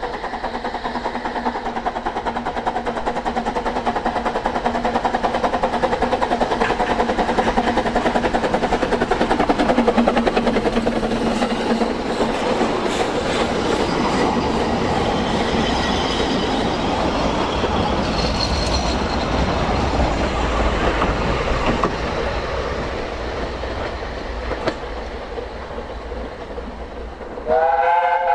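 Narrow-gauge steam train running past: the locomotive and its coaches rumble and clatter on the rails, loudest about ten seconds in as they pass close. Near the end a steam whistle sounds loud, sliding up at its start.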